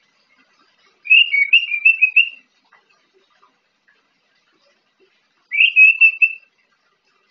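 An orange-headed thrush singing two short warbled phrases of whistled notes, a longer one about a second in and a shorter one near the end. It is a young bird still learning its song.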